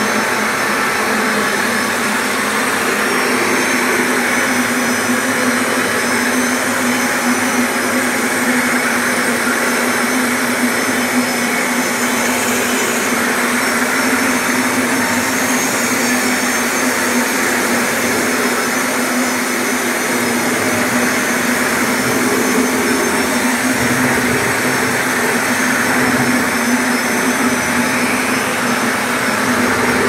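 Electric marble grinding and polishing machine running steadily, its abrasive pad grinding wet marble: a constant motor hum under a grinding hiss.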